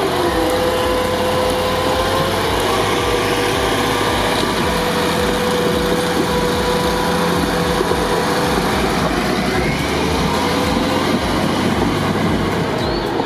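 A heavy truck engine running steadily with an even low pulsing.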